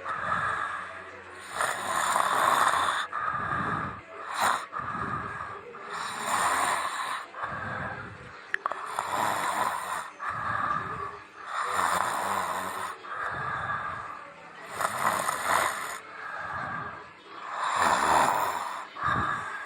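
A person snoring: noisy breaths swelling and fading one after another, about every one and a half seconds.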